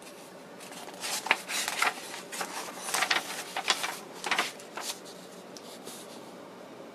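Paper pages of a stapled instruction manual rustling and crackling as they are turned over and handled, a quick run of rustles that dies away about five seconds in.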